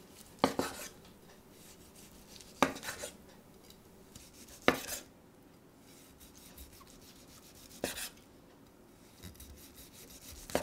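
Kitchen knife slicing through a pan-fried, oven-roasted duck breast on a bamboo cutting board: each cut is a sharp knock on the board followed by a short rasp through the crust. Four cuts about two seconds apart, then lighter ones near the end.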